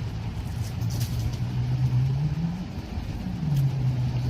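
Toyota Tacoma's engine running under load, its pitch rising about two seconds in and easing back down about a second later, over a steady low rumble.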